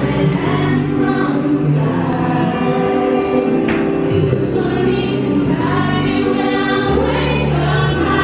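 Live concert music: a woman singing into a microphone over amplified accompaniment.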